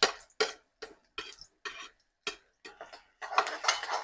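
Metal spoon tapping and scraping against a metal wok while sliced onions are stirred: a run of sharp separate clinks, then a busier burst of scraping about three seconds in.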